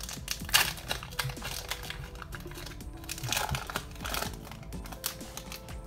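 Foil wrapper of a Pokémon booster pack crinkling as it is handled and torn open, with loud rustling bursts about half a second in and again around three to four seconds in.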